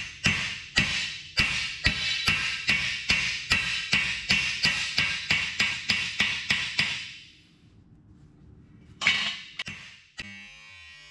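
Hand hammer driving a cold steel rivet on a 140 lb Alec Steele Co. anvil: a steady run of sharp metallic blows, about three a second, that stops after about seven seconds. A few more blows follow near the end.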